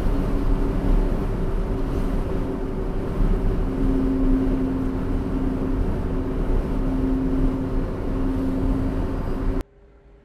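Steady rumble of road and engine noise inside a moving truck's cab at motorway speed, with a steady droning hum. It cuts off suddenly just before the end.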